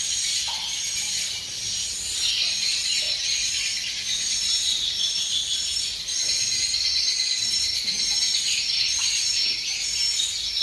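Swiftlets twittering in a swiftlet house: a dense, continuous chorus of high chirping calls with short call phrases repeating again and again.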